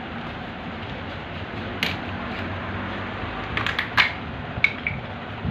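Plastic clicks and crackles from a hand working the cap of a sealed plastic 4T engine oil bottle: one sharp click about two seconds in, a cluster around four seconds, and two more soon after. A steady background hiss runs beneath.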